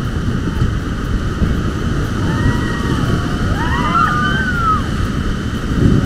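Whitewater rapids rushing loudly around an inflatable raft, with wind buffeting the microphone as the raft runs the rapid.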